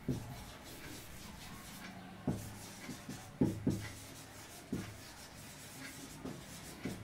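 Marker pen writing on a whiteboard: a handful of short taps and strokes from the pen tip on the board, with faint quiet between them.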